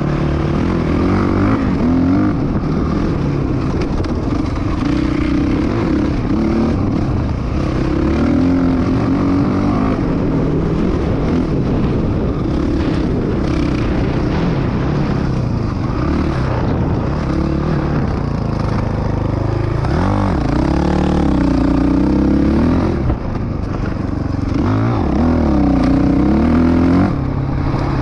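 Dirt bike engine running under load on a trail ride, its pitch continually rising and falling with throttle and gear changes. Twice, a few seconds before the end and again near 20 seconds in, the revs drop sharply and climb back up.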